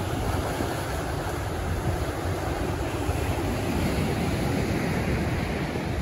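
Ocean surf washing steadily onto a sand beach, with a low rumble of wind buffeting the microphone.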